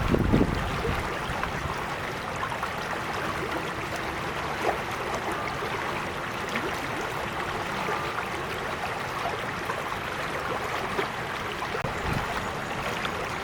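Creek water flowing and babbling steadily over stones, a continuous even rush with many small splashes and trickles. There is a brief low rumble right at the start.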